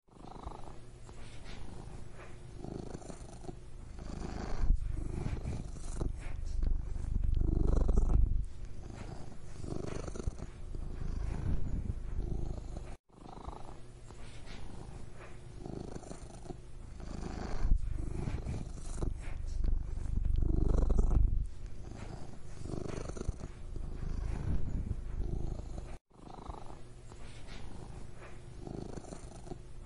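Domestic cat purring continuously, a low rumble that swells and eases with each breath in and out, every second or two. The sound cuts out for an instant twice.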